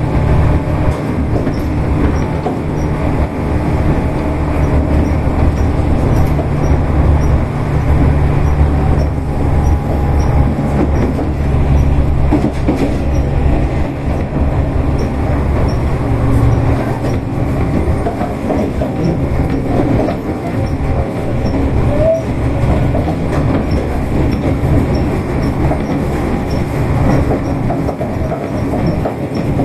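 Tobu 8000 series electric train running along the line, a steady, loud running noise with a low motor hum and wheels rolling over the rails. The hum eases a little about halfway through.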